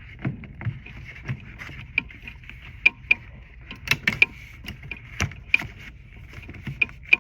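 Irregular knocks, taps and scraping as a furnace air filter is pushed and wrestled into a ceiling-mounted filter box, with the ceiling around it getting knocked about.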